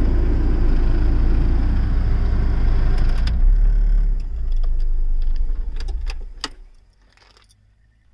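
Hyundai Santamo's engine idling, heard inside the cabin with a rushing hiss over it. The hiss stops about three seconds in with a few clicks. After more clicks and keys jangling, the engine cuts off at about six and a half seconds, leaving a faint hum.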